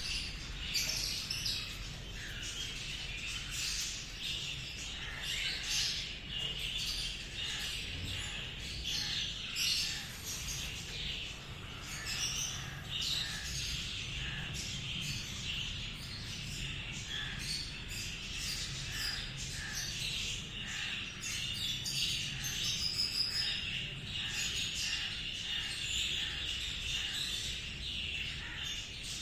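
Cockatiel chirping over and over: a steady run of short, high chirps and squawks.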